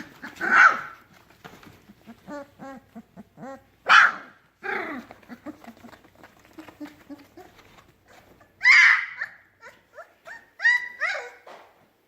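Three-week-old puppies yipping, squealing and whimpering while they play, a run of short high-pitched squeaks broken by three louder, harsher yelps: about half a second in, at four seconds, and near nine seconds.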